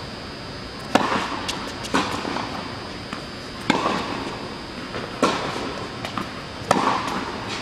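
Tennis ball struck by rackets in a rally on an indoor hard court: a serve about a second in, then sharp racket strikes roughly every one and a half seconds, five in all, with lighter ball bounces between, echoing in the hall.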